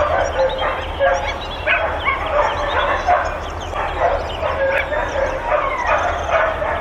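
A pack of kennelled dogs barking nonstop, many overlapping barks several times a second, the incessant barking of a boarding kennel.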